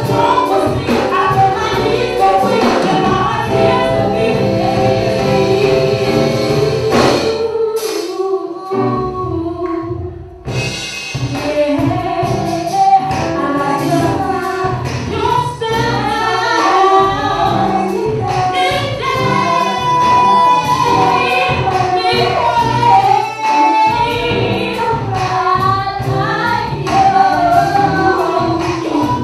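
Live band playing with a female lead singer and female backing vocalists over keyboards, electric guitar and drums. About seven seconds in the band drops to a sparse passage for about three seconds, then the full band comes back in.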